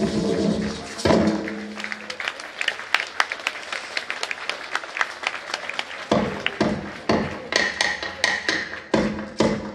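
Live folk music: a held chord breaks off about a second in, followed by light, irregular tapping. From about six seconds, sharp percussion strikes set up a steady rhythm of roughly two to three beats a second.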